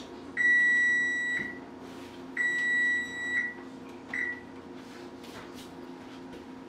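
Electronic beeps from an electric stove's control panel: two long steady beeps of about a second each, then a short beep as a button on the panel is pressed.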